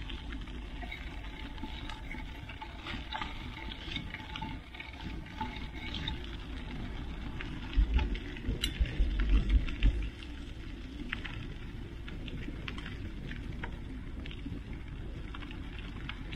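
Mountain bike rolling along a gravel dirt trail: a steady crunch and rattle of tyres and frame on loose grit, with scattered small clicks. About eight seconds in, heavy low rumbling buffets the microphone for two seconds.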